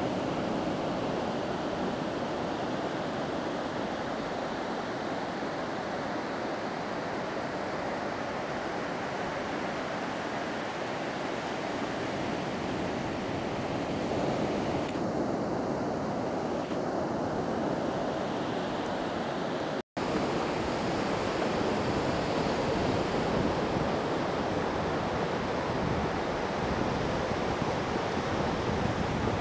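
Steady surf and wind noise on the microphone, an even rushing with no calls from the seals. The sound drops out completely for an instant about two-thirds of the way through.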